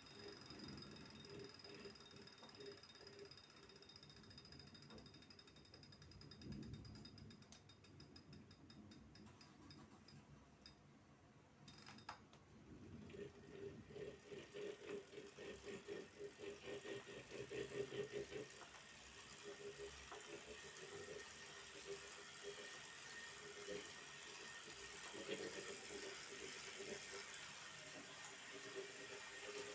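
Wahoo KICKR smart bike trainer making a faint, strange mechanical ticking. The ticking quickens and stops abruptly about twelve seconds in, and a rhythmic pulsing hum follows.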